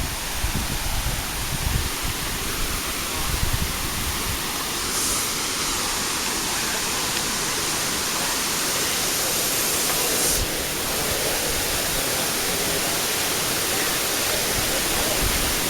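Ho'opii Falls, a jungle waterfall, rushing in a steady wash of falling water, with low rumbles of wind or handling on the microphone in the first few seconds.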